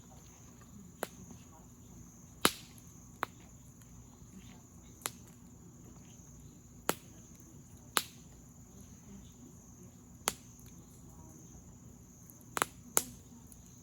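Campfire wood popping with about ten sharp, irregular snaps, the loudest about two and a half seconds in and near the end. Crickets chirr steadily underneath.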